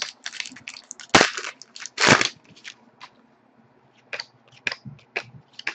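Panini Pinnacle hockey cards being flipped through and handled: a series of sharp card snaps and clicks. The two loudest come about one and two seconds in, then there is a short lull and a few lighter clicks near the end.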